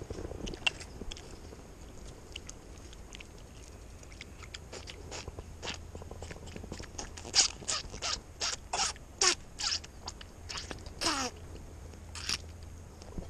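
Puffer fish held out of the water, puffed up, making a run of short squeaks and clicks, several sliding down in pitch, thickest in the second half.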